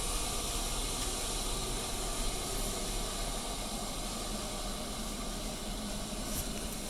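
Steady hiss of alcohol simmering in a small pot on the stove, heated to boiling.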